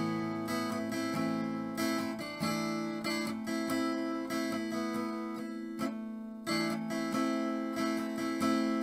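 Acoustic guitar strummed in chords through a chord progression, starting with a sudden strum and then striking a new chord every half second to second and a half, each left ringing into the next.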